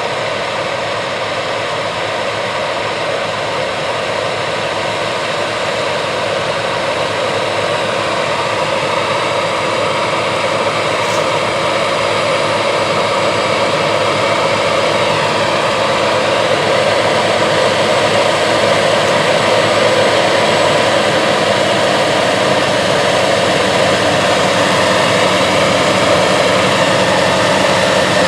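Gleaner S97 combine running while harvesting soybeans: its 9.8-litre AGCO Power diesel engine and threshing machinery make a steady drone that grows gradually louder.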